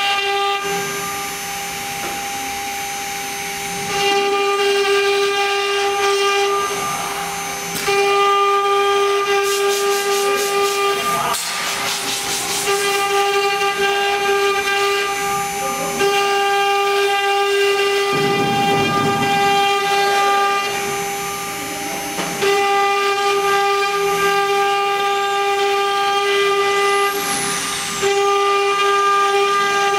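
STYLECNC STM1325 wood CNC router's 3.0 kW spindle whining at a steady high pitch as it engraves a figure into a wood board. The sound steps louder and quieter every few seconds as the bit moves along the lines.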